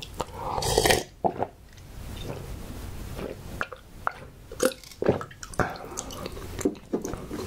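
Man drinking water from a glass close to the microphone: a run of gulps and swallows, one or two a second.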